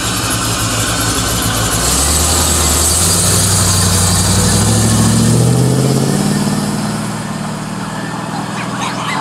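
V8 muscle car accelerating hard, its engine note rising over about four seconds and then levelling off, over the steady running of another engine.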